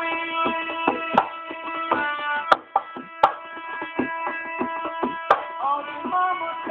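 Live music: tabla drumming with steady held melodic notes over it, and a few sharp, loud strokes scattered through it.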